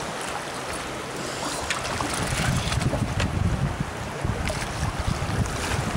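Wind buffeting the microphone, heavier from about two seconds in, over water splashing as a hooked sturgeon thrashes at the surface beside the boat.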